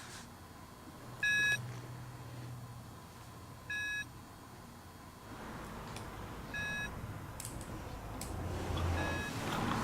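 Hearing-test tones: four short beeps about two and a half seconds apart, each fainter than the last, over a low steady hum. A low rumble swells in the second half.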